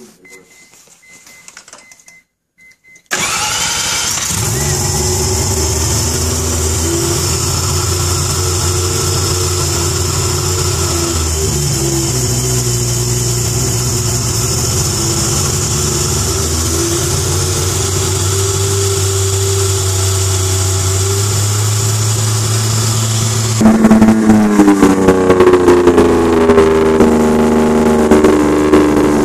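Freshly rebuilt three-rotor rotary engine in a Mazda RX-7 FD3S catching suddenly about three seconds in, then running at a steady fast idle whose pitch steps up and down a little. Near the end it runs louder, with the engine speed rising and falling.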